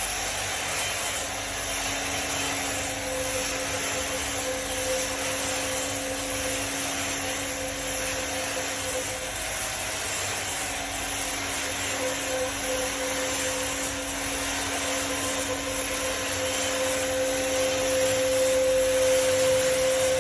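Power saw running steadily as it rips a log lengthwise into a wooden house post, a constant machine hum with a steady whine over the hiss of cutting, a little louder in the last few seconds.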